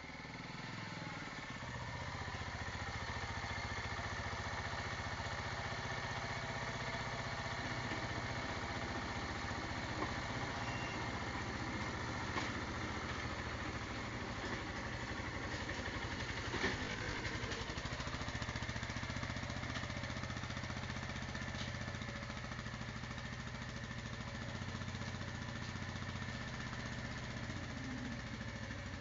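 Motorcycle engine running at low revs and idling. It gets louder over the first two seconds, then holds steady, with a few brief clicks.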